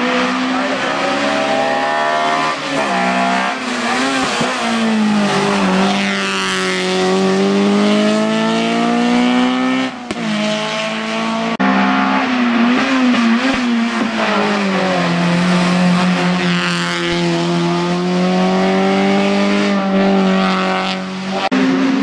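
Race car engine at full throttle climbing a hill-climb course, its pitch rising through each gear and dropping sharply at every shift, with a short break about ten seconds in.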